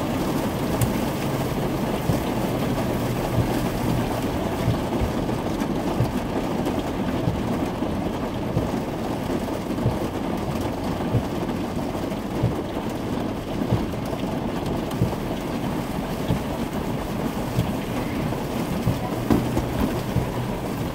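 Steady low rumble and hiss inside the cabin of a car sitting at idle, with a few small knocks near the end.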